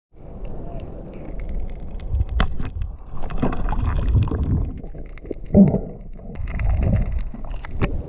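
Muffled underwater rumble and sloshing of a swimmer moving through water, heard from a submerged camera, swelling and fading several times, with scattered sharp clicks.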